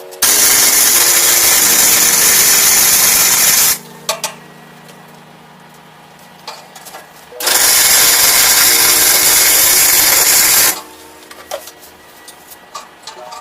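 Welding on a steel trike frame: two welding runs of about three and a half seconds each, a loud, even crackling hiss that starts and stops abruptly, with a pause between. Quiet background music plays underneath.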